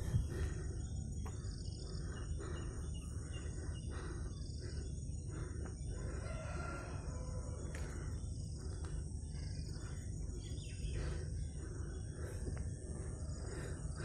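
A rooster crowing once about halfway through, with small birds chirping and a steady low rumble underneath.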